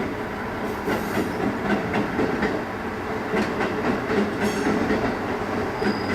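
Train rolling along the station tracks, its wheels clattering over rail joints in an uneven rhythm over a steady rumble.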